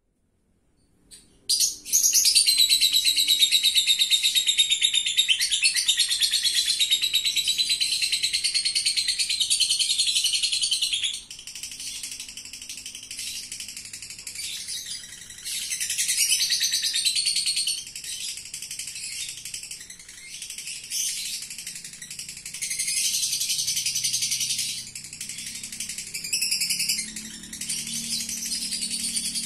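Caged lovebird singing its ngekek: a high-pitched rapid chattering trill that starts about two seconds in and runs unbroken and loud for about nine seconds, then goes on more softly with several louder stretches.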